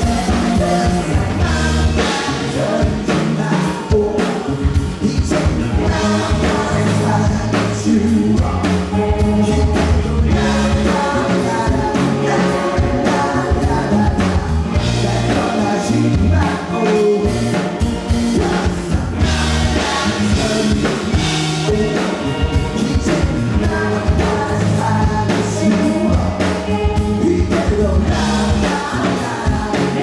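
Live rock band performance: a male lead singer sings into a microphone over a drum kit and the rest of the band.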